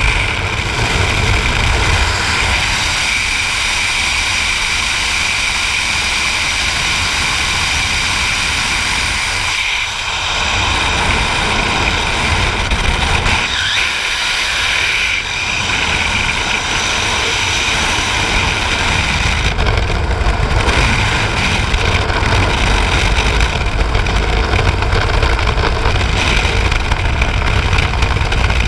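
Loud, steady rush of freefall wind buffeting the camera microphone during a skydive.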